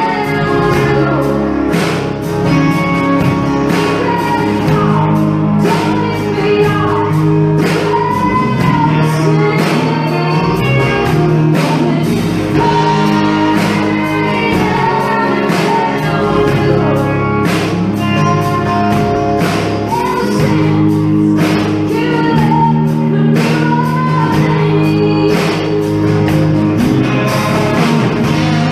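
A woman singing a slow song live, accompanied by guitar, with a steady beat of sharp strikes under the melody.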